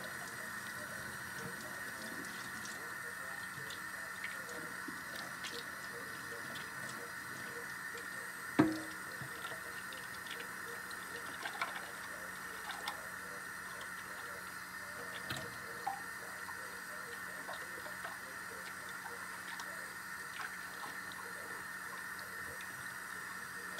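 Kitchen tap running steadily into a sink while dishes are washed, with scattered light clinks and one sharp knock with a short ring about nine seconds in.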